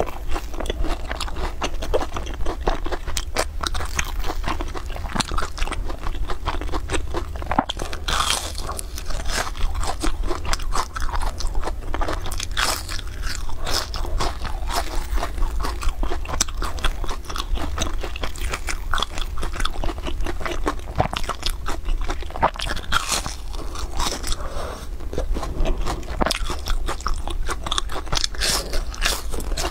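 Close-miked crunching and chewing of deep-fried breaded rolls: the crisp crust cracks as it is torn open and bitten, with dense small crackles throughout.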